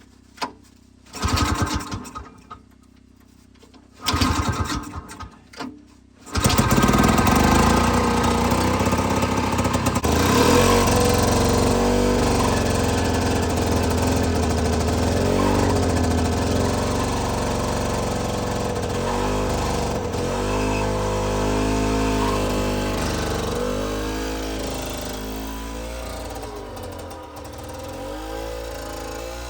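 A small gasoline engine is cranked in several short attempts, catches about six seconds in, and keeps running with unsteady, rising and falling revs that settle slowly. It is being restarted after stalling, just after a fuel-delivery fix to the carburetor.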